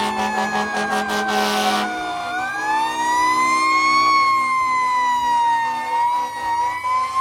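Fire truck siren wailing. Its pitch slides slowly down for about two seconds, then climbs and wavers. A low steady blare with a hiss runs under it for the first two seconds.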